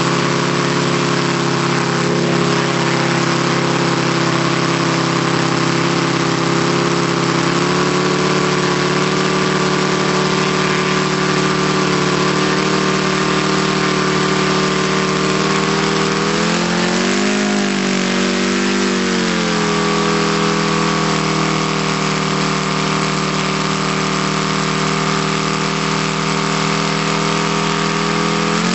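ASP FS400AR five-cylinder four-stroke radial model aircraft engine running steadily on its first start. Its speed rises and falls briefly about two-thirds of the way through, and picks up again near the end.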